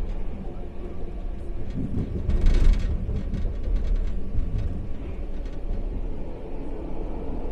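Expo Line SkyTrain running on its guideway: a steady low rumble of the train, with a brief louder hiss about two and a half seconds in.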